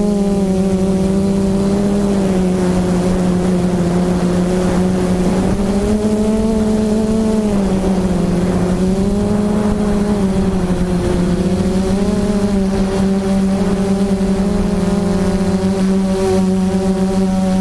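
QAV500 quadcopter's MT2814 770KV brushless motors spinning Xoar 10x6 propellers, heard from the onboard camera: a steady buzzing hum. Its pitch rises and falls gently with throttle, going up around six seconds in and again near twelve seconds.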